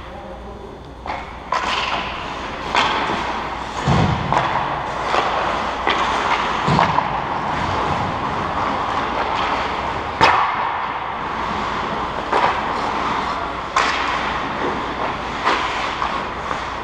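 Ice hockey play on a rink: skates scraping the ice as a steady hiss that picks up about a second in, with sharp knocks and thuds of sticks and puck every second or two, a few of them heavier and one sharp crack about ten seconds in.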